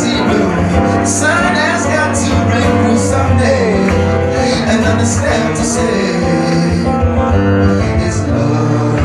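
Live acoustic guitar strummed steadily, with a man singing over it.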